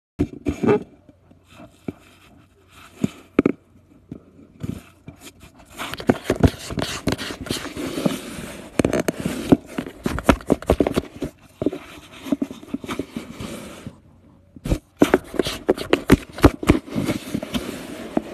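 A cat scratching and scraping at cardboard right up against the phone: an irregular run of scrapes and sharp clicks, with a short break about two-thirds through.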